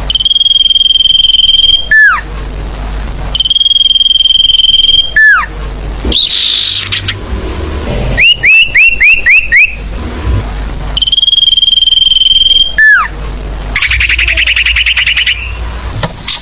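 Lure-call recording of the sirfu, a small songbird: a long, steady, high whistle ending in a quick downward slur, given three times, with a run of six quick chirps and short buzzy trills between them.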